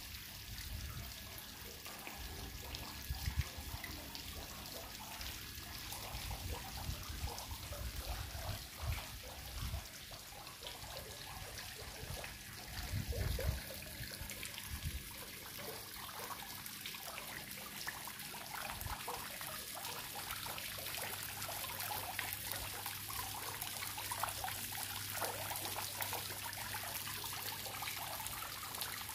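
Small courtyard fountain jetting water into a tiled pool: a steady splashing trickle that grows louder toward the end.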